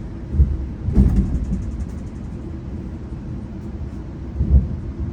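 GO Transit commuter train's low rumble, with dull thumps about half a second, a second and four and a half seconds in, and a brief run of rapid clicks about a second in.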